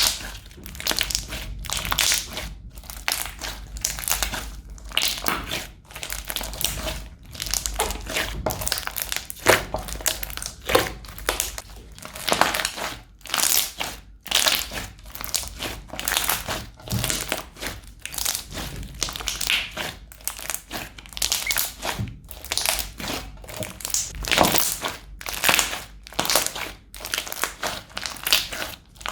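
Crunchy slime squeezed and pressed by hand, giving a continuous run of irregular crackles and crunches.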